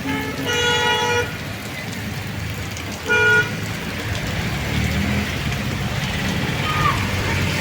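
A vehicle horn honks twice, once for under a second near the start and again briefly about three seconds in, over a steady low rumble of road traffic.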